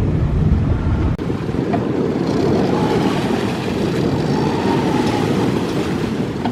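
Strong wind blasting across the microphone, with a brief drop about a second in. A faint whine rises and falls under the wind in the middle.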